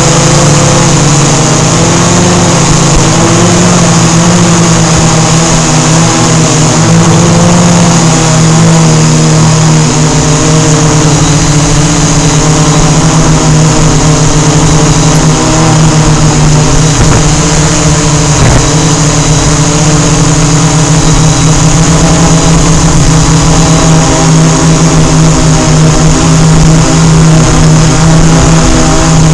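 Blade Chroma quadcopter's electric motors and propellers humming loudly in flight, picked up by its onboard camera. The hum is made of several steady pitches that waver slightly as the motor speeds change.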